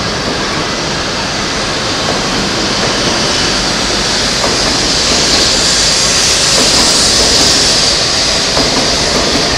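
E7/W7-series Shinkansen train pulling out of the station, its cars rolling past with a steady rushing noise. It slowly grows louder, and a hiss strengthens from about five seconds in.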